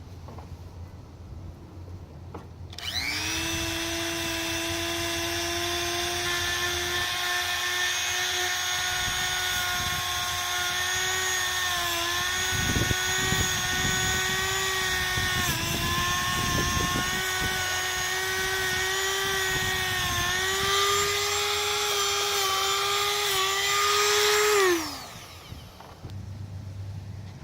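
Small electric power-tool motor starting up and running at a steady high whine for about 22 seconds, its pitch sagging briefly a few times as it is loaded, then winding down with a falling pitch.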